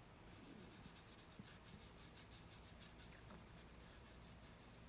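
Faint, fast rhythmic swishing of a gray Scotch-Brite abrasive pad rubbing against a spinning walnut bowl on a wood lathe, knocking down grain fuzz raised by an alcohol wipe, with a low steady hum underneath.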